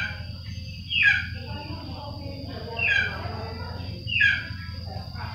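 A kitten mewing: four short, high-pitched calls, each falling in pitch, about one to two seconds apart.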